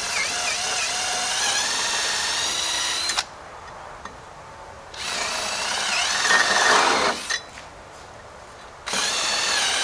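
Power drill with a 3/8-inch bit boring through a wooden swing-set beam, run in three bursts with short pauses between. The motor's pitch dips as the bit bites in, and the cutting is loudest in the middle burst.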